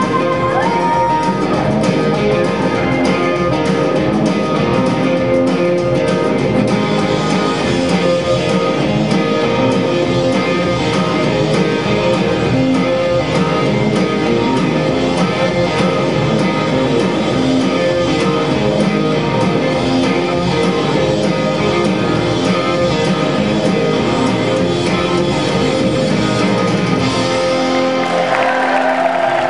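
Country-western dance music with guitar and a steady beat. It stops near the end.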